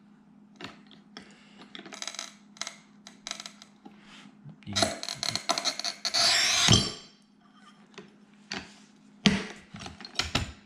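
Manual rail tile cutter on a ceramic subway tile: light clicks and rattles as the carriage is set, then the scoring wheel scratching across the glazed tile for about two seconds. A couple of seconds later comes a sharp snap as the tile is pressed and breaks along the score.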